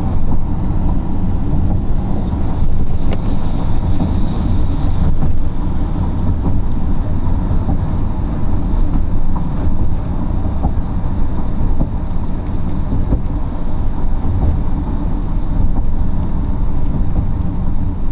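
Steady low road noise of a car driving along, heard from inside the cabin: tyre and engine sound.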